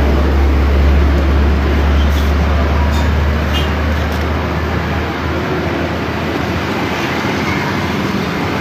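Road traffic noise: a motor vehicle's low, steady engine rumble that fades away about five seconds in, over a steady hiss of passing traffic.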